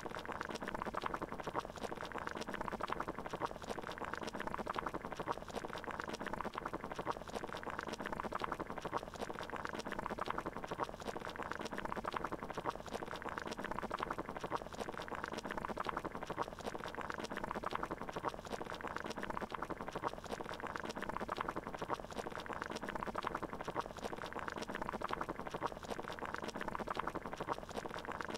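Water bubbling at a steady boil, an even, unbroken bubbling.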